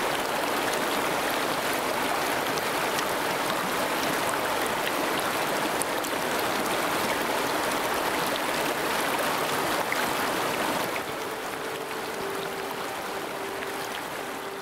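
Shallow river current rushing and rippling over a riffle in a steady, even wash. Near the end the water sound drops a little and a soft held musical tone comes in underneath.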